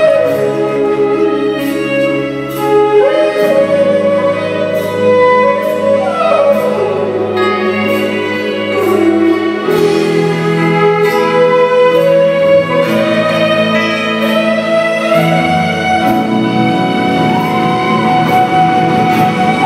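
Live Bollywood band music: sustained melody lines with sliding notes over keyboards, bass and a steady drum beat, in the reverberant sound of a large concert hall.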